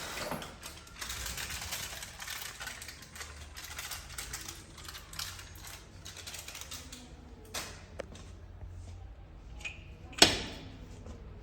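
Installation work noise: a dense run of small rattling clicks, as of tools or hardware being handled, then scattered clicks and one sharp knock about ten seconds in.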